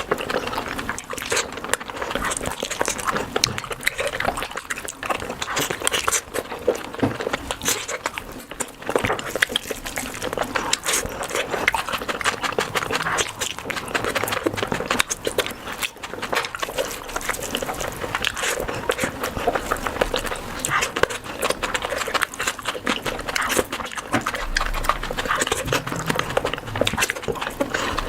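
Close-miked mouth eating sounds: steady wet chewing, lip smacking and slurping of food, with dense rapid clicks.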